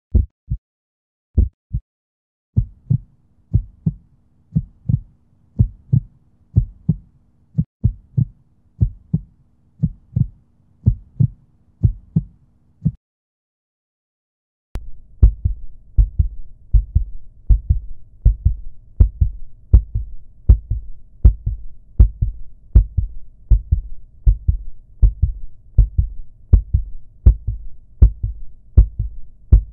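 Heartbeat sound effect: a few scattered thumps, then a steady lub-dub over a low hum. It cuts out for about two seconds and comes back faster, a racing heartbeat.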